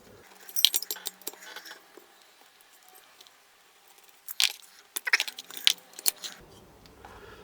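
Small metal engine parts and tools clinking and rattling as they are handled, in a burst of clatter about half a second in and again in several sharp clinks between about four and a half and six seconds in.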